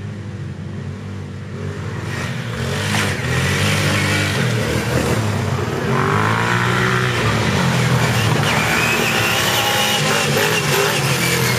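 ATV engine riding toward the listener, its pitch rising and falling again and again with the throttle. It grows louder over the first several seconds, then stays close and loud.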